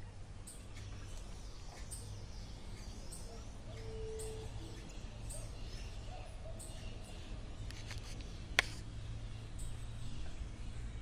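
Faint night-time creek ambience: a steady low hum with a few brief, faint animal calls, and one sharp click a little past halfway.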